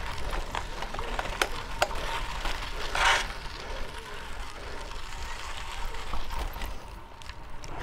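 Fixed-gear bicycle being ridden through city streets: a steady low rumble of wind and road noise, with scattered clicks and rattles and a brief hiss about three seconds in.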